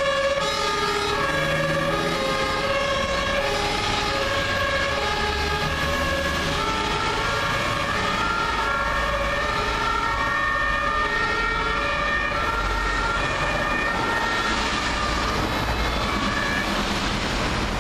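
Several German fire engines' two-tone sirens (Martinshorn) sounding at once, their high and low notes alternating out of step with each other, over traffic and truck engine noise. The sirens fade out near the end as the trucks drive away.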